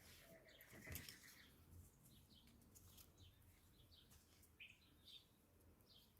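Near silence: quiet room tone with faint, scattered high chirps in the background.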